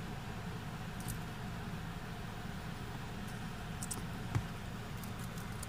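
Steady low background hum with a few faint clicks and one sharper tap a little past four seconds in: small handling noises from picking up and turning a watch movement between the fingers.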